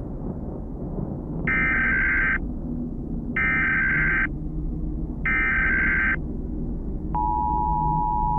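Emergency Alert System broadcast tones: three short bursts of the SAME digital header, each about a second long and a second apart, then the steady two-tone attention signal starting near the end, over a low rumble.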